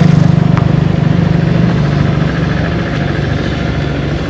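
A road-construction machine's engine running steadily, loudest at first and easing off after about two seconds as the machine moves away.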